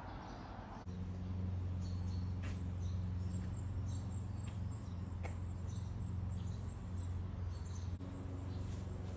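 Small birds chirping in short high calls over outdoor ambience. A steady low hum comes in about a second in and stays the loudest sound.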